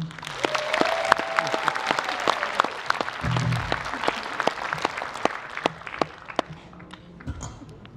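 Concert audience applauding, dense at first and thinning out over the last two seconds, with a few held notes from the stage under the clapping.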